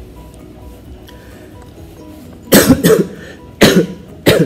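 A man coughs in a short fit of several loud coughs, starting about two and a half seconds in.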